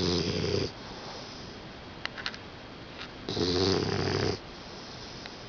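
English bulldog puppy snoring in its sleep: two snores, one at the start and one about three and a half seconds in, each lasting about a second with a breathy hiss over a low buzzing drone.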